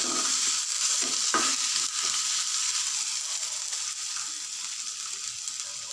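Butter sizzling in a frying pan with garlic, curry leaves, cumin and freshly added ginger for a tadka. A spoon stirs and scrapes the pan in the first second or two, and the sizzle slowly dies down.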